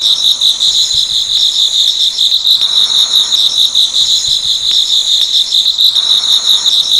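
Crickets chirping loudly in a steady, fast-pulsing high trill.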